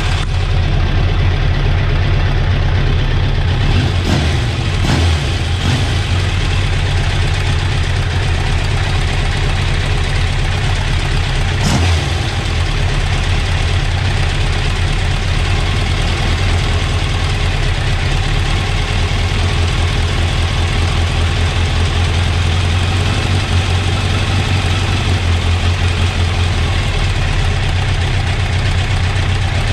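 Motorcycle engine idling steadily on freshly rebuilt Keihin carburettors, warming up before the carbs are balanced. A few brief clicks sound over it early on and about twelve seconds in.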